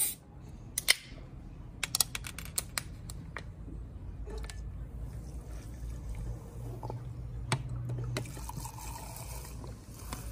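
A soft-drink can's ring-pull snapping open with a short hiss, then a few sharp clicks as the can is handled. From about four seconds in, fizzy soda is poured from the can into a glass, fizzing steadily.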